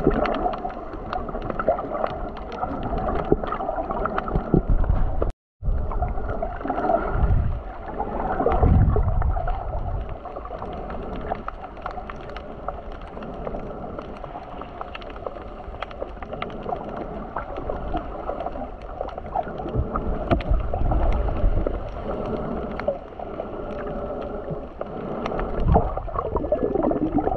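Muffled sloshing and gurgling of seawater moving around a camera in the sea, rising and falling in uneven swells. The sound drops out completely for a moment about five seconds in.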